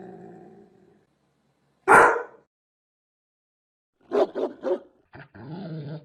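A large dog barking: a drawn-out low vocal sound fades out, then one loud, deep bark comes about two seconds in. A quick run of three barks follows about four seconds in, and a rough drawn-out sound from the dog comes near the end.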